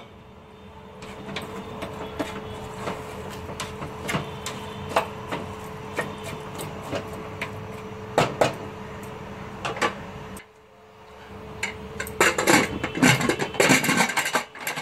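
Wooden spoon stirring a vegetable curry in an aluminium pressure cooker, knocking against the pot now and then over a steady background hum. Near the end, a burst of metal clatter and knocks as the pressure cooker lid is fitted and locked shut.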